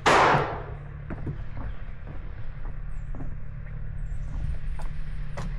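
A brief loud whoosh right at the start, falling in pitch, then scattered footstep knocks on wooden dock boards over a low steady hum.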